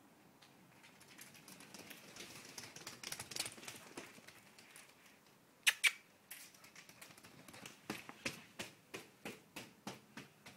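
Ouessant sheep's hooves clattering on a concrete floor as it runs. A quick patter swells and fades in the first few seconds, two sharp knocks come near the middle, then a steady run of clicks about three a second near the end.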